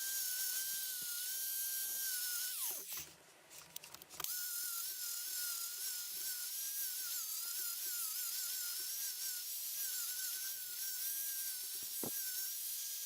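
A small high-speed electric power tool whining steadily, its pitch wavering as it bears on the work. About 3 s in it spins down and stops, then starts up again a second and a half later.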